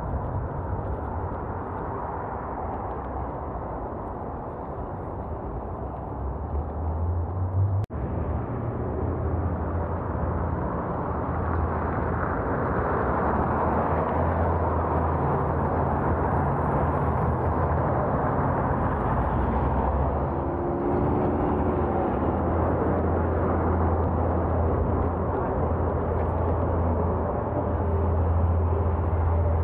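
Steady outdoor noise heard while cycling: a rushing of wind and traffic with a strong low rumble. It breaks off sharply for an instant about eight seconds in, then runs on a little louder.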